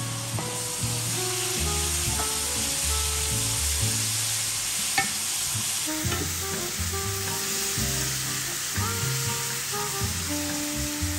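Food sizzling in a frying pan while being stirred, with a single light utensil clink about five seconds in, over soft background music.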